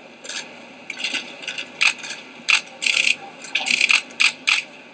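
Several press photographers' camera shutters clicking in quick, irregular clusters, some in rapid doubles and runs.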